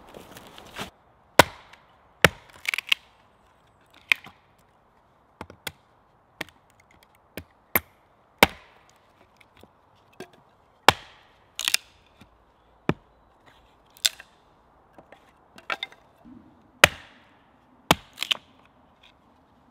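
Hatchet chopping a pine board on a wooden chopping block: about twenty sharp chops at an uneven pace, roughly one a second, some coming in quick pairs.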